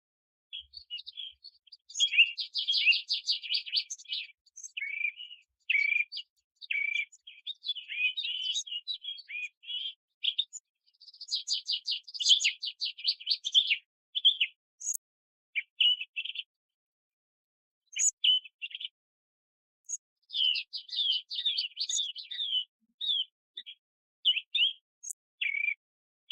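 A songbird singing in phrases of quick high chirps and fast trills, broken by short pauses.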